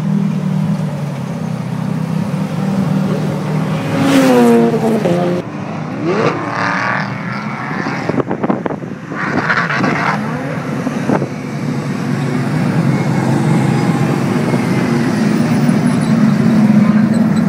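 GT race cars' engines running on a circuit, with engine notes rising and falling as cars pass. A steady engine drone grows louder toward the end as more cars approach.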